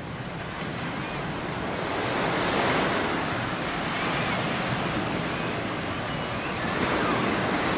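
Surf washing against a sea wall, swelling about two and a half seconds in and again near the end, with wind buffeting the microphone.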